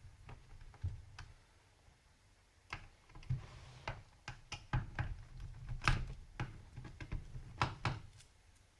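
Scattered small clicks and light knocks of a Samsung NP305V laptop being taken apart by hand: its plastic case, hard drive and screws being handled, irregular and bunched in the second half.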